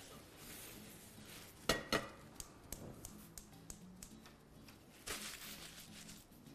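Metal pot and kitchen utensils clinking: two sharp, ringing clanks about a second and a half in, a few lighter clicks after, and a brief scrape about five seconds in.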